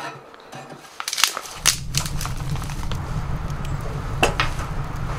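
A few sharp metallic clinks and clanks from a steel Guide Gear camp wood stove being handled as it is lit, with a steady low rumble underneath starting about a second and a half in.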